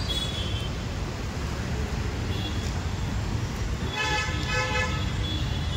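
Steady road-traffic rumble, with a horn-like pitched tone lasting about a second roughly four seconds in.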